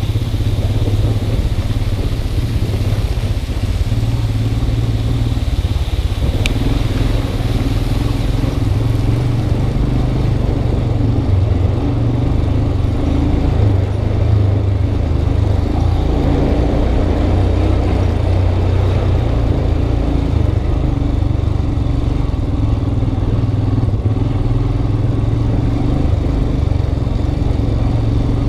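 Motorcycle engine running steadily at low speed on a rough dirt track, heard through a helmet-mounted camera, with a single short click about six seconds in.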